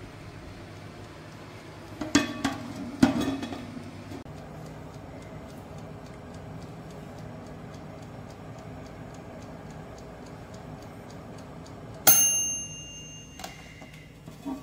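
Halogen convection oven running with a steady fan hum while its mechanical timer ticks. Two clattering knocks about two and three seconds in, and a sharp ringing clink about twelve seconds in.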